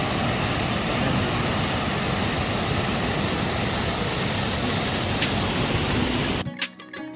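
Steady, loud rushing noise that spreads evenly from low to high pitches, with no tone or rhythm in it, cutting off suddenly near the end.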